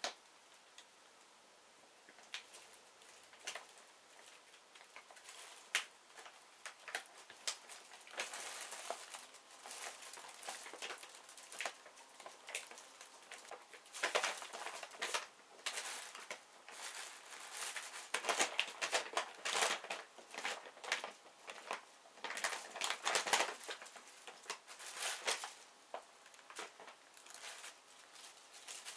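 Plastic shopping bag crinkling and rustling in irregular bursts as a cat digs its head into it and tips it over, sparse at first and busiest in the second half.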